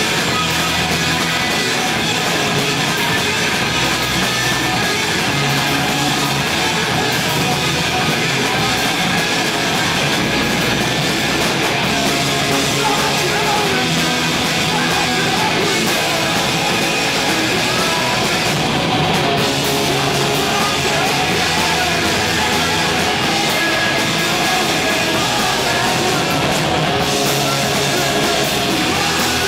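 Live rock band playing electric guitars and a drum kit, loud and unbroken.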